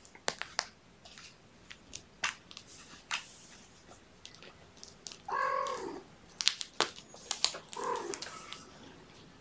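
A kitten meows twice, a longer meow about five seconds in and a shorter one near eight seconds, amid scattered light clicks and rustles.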